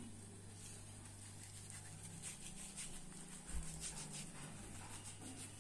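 Faint soft handling sounds of hands pinching off and rolling wheat-flour methi dough into balls over a steel plate, with a slightly louder thump about three and a half seconds in. A low steady hum runs underneath.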